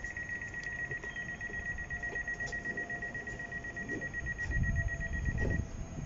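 A rapid, high-pitched electronic warning beep sounds continuously, cutting off about five and a half seconds in. Under it a freight train approaches, its low rumble swelling to the loudest point near the end.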